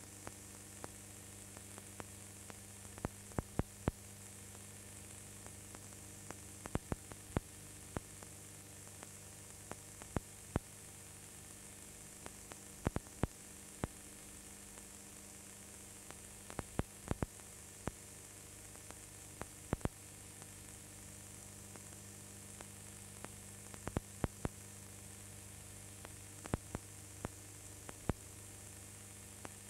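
Steady electrical hum and hiss broken by irregular sharp clicks and crackles, some in quick clusters. It is the empty sound track of an old film transferred to video, with no live sound recorded.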